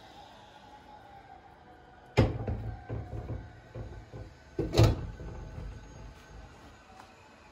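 Two dull knocks about two and a half seconds apart, each followed by brief crackling, over faint background music.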